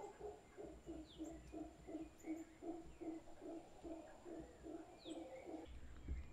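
Mantled howler monkeys giving a fairly faint series of low, rhythmic grunts, about three a second, which stop near the end. Brief high bird chirps sound now and then above them.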